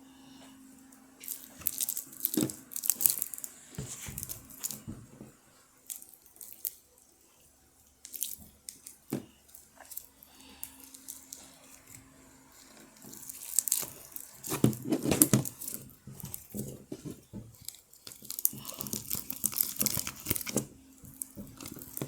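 Sticky butter slime being stretched and squeezed by hand, giving irregular wet crackles and pops that come in clusters, busiest about two-thirds of the way through and again near the end.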